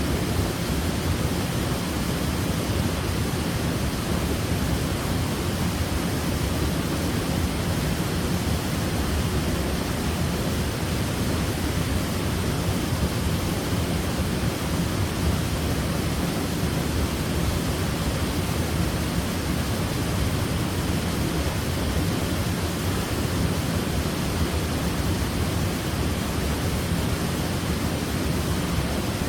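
Waterfall: water pouring and crashing in a steady, unbroken rush, deepest in the low end.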